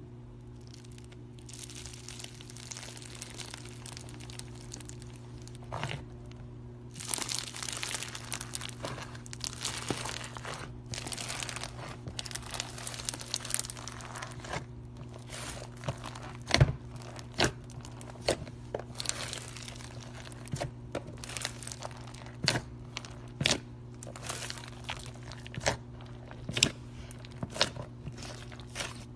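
Slime being handled, squeezed and stretched, with long crackly, crinkling stretches and then a run of sharp pops and clicks, one much louder about halfway through. A steady low electrical hum runs underneath.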